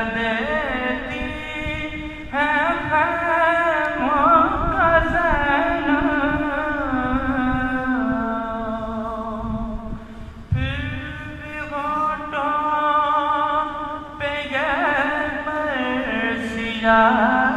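Solo male voice chanting an Urdu elegy (marsiya) in long melismatic phrases. The held notes waver and bend, and a new phrase begins every few seconds.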